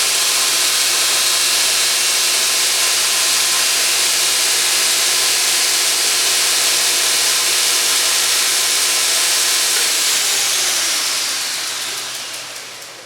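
Homemade belt grinder with a 2 hp electric motor running steadily, the sanding belt giving a loud whirring hiss. About ten seconds in the grinder is switched off and winds down, its pitch falling as the sound fades away.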